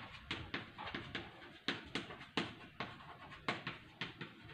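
Chalk tapping and scratching on a chalkboard as handwriting is written, a string of short irregular ticks about three to four a second.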